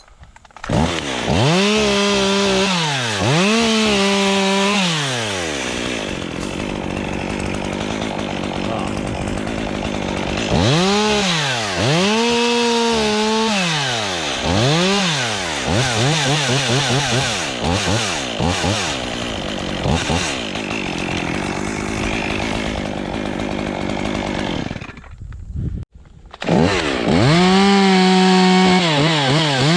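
Chainsaw started up and worked in wood: the engine is revved up and down several times, then held steady while cutting. The saw drops out briefly near the end, then runs at high revs again.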